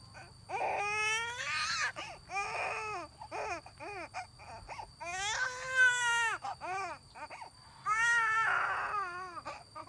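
Infant crying: a run of wailing cries, with longer, louder cries about a second in, around five seconds in and near the end.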